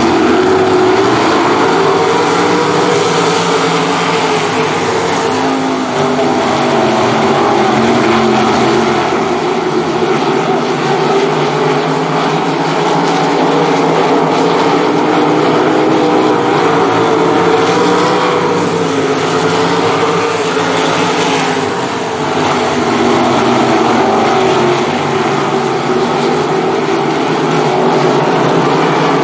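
Several 305 sprint cars racing on a dirt oval, their small-block V8 engines running together, the pitch wavering up and down as the cars work through the turns.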